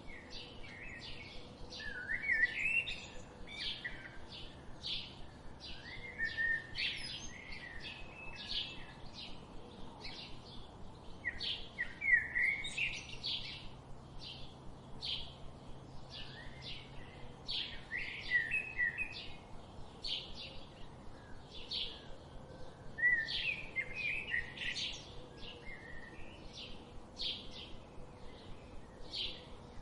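Forest birdsong: a steady series of short, high chirps, about two a second, with a lower warbling phrase breaking in every five or six seconds.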